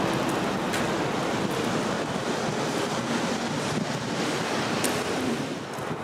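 Steady rushing outdoor noise with a few faint clicks.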